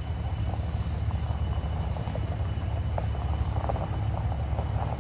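A vehicle driving, with a steady low engine and road rumble and light irregular rattles.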